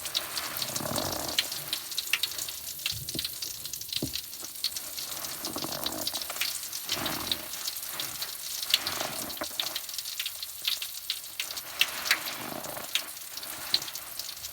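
Bath crackles fizzing in water, giving an irregular run of sharp little pops and crackles, with the water swishing now and then.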